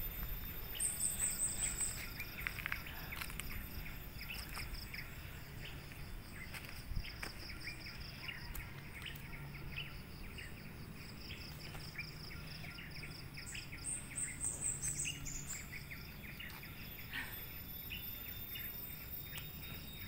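Forest ambience: insects keep up a steady, evenly pulsing high buzz while birds call, with short high trills about a second in and again around fourteen seconds.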